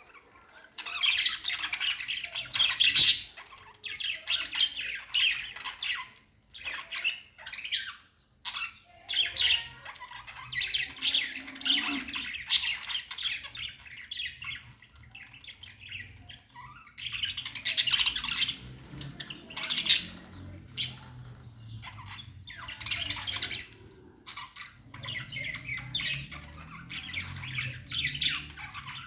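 Small pet parrots chattering and squawking in repeated bouts of a few seconds, with short pauses between.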